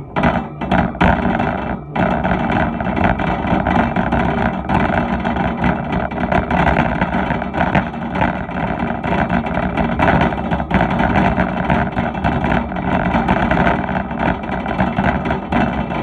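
Wire shopping cart being pushed across a store floor, its wheels and metal basket rattling and clattering continuously, heard up close from a phone riding in the cart. A few separate knocks in the first two seconds, then an unbroken rattle.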